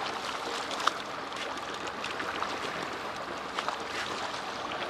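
Water washing and lapping against the side of a small fishing boat, a steady rush with a few small sharp ticks and splashes.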